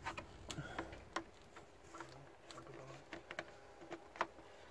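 Scattered light clicks and taps of hands working parts and fittings in a car engine bay around the diesel fuel filter, irregular, with the sharpest click about four seconds in.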